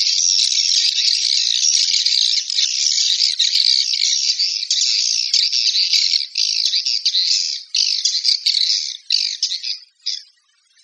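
Recorded swiftlet calls played as a lure sound for a swiftlet house: dense, high-pitched chirping and twittering with no break, becoming choppy about eight seconds in and stopping shortly before the end.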